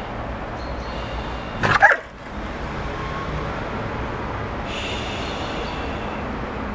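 A single loud, sharp bark from a frightened, injured small dog with a broken lower jaw, about two seconds in, as a hand reaches toward him. A steady low background hum runs underneath.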